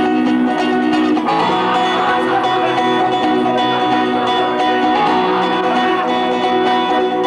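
Instrumental rock music with guitar, a steady band passage with no singing; the chords change about a second in.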